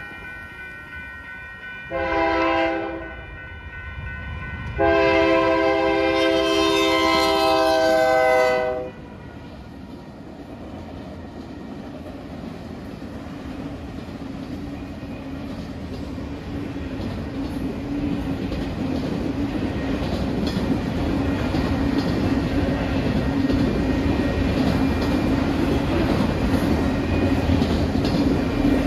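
Locomotive air horn blowing a short blast and then a long one, the close of a grade-crossing horn signal. Then a freight train of autorack cars rolls past with wheels clattering on the rails, growing steadily louder.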